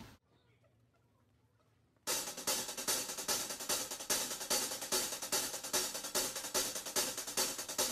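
Near silence for about two seconds, then background music comes in suddenly with a quick, steady beat of hi-hat, cymbals and drums.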